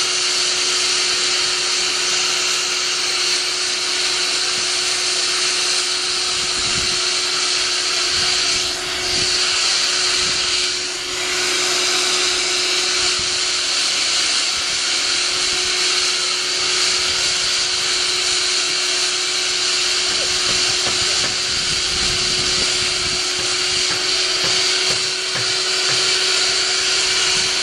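Shop vac running steadily, a constant airy hiss with a steady hum, pulling bees through a flexible hose into a 5-gallon water-bottle trap with a burlap filter. The suction dips briefly twice around the middle.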